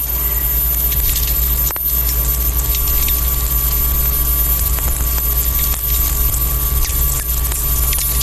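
Electromagnetic fields picked up by a small loop antenna and played as audio: a steady electrical mains hum with its overtones, crossed by a few sharp clicks.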